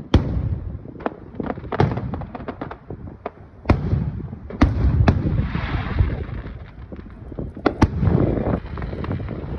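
Fireworks going off: a series of sharp bangs and booms, some in quick runs, over a low rumble.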